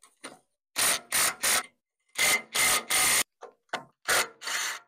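Hand ratchet wrench ratcheting in short bursts, about ten strokes each a fraction of a second long, mostly in quick groups of three, as the bolts holding the tractor's radiator are loosened.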